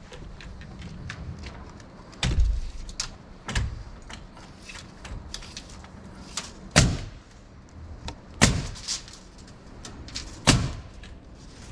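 Wooden knocks and thumps as roof rafters are worked into place on a timber frame: about five loud irregular blows a second or two apart, with lighter knocks between.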